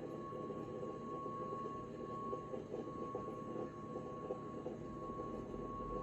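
Boeing 737 MAX 8's CFM LEAP-1B engines heard from inside the cabin as they run up for takeoff: a steady drone with a constant high whine. A deeper rumble builds near the end.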